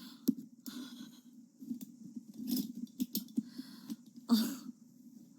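A sleeping woman breathing audibly, with three breaths spaced about two seconds apart, the last the loudest. A few sharp clicks fall in between.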